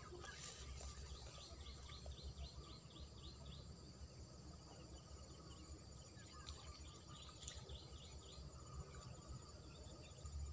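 Faint open-marsh ambience: a steady high insect buzz, with a quick run of short repeated chirps for a few seconds near the start and an uneven low rumble underneath.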